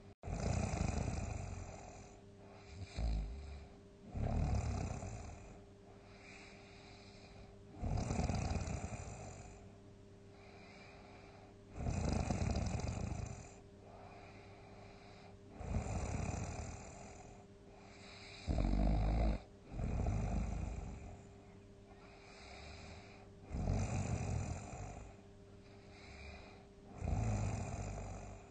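A sleeping person snoring loudly, one snore about every four seconds; one snore about two-thirds of the way through is shorter and sharper than the rest. A faint steady hum runs underneath.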